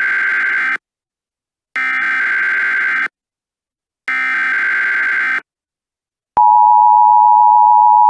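Emergency Alert System data header: three harsh, screeching digital bursts of about a second and a half each, with short silences between them. About six seconds in, the steady two-tone EAS attention signal begins.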